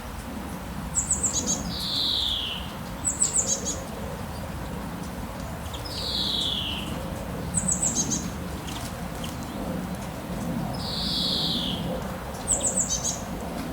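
Songbirds calling: a clear falling whistle, repeated about every four seconds, alternates with a quick run of three or four high chirps, over a steady background hiss.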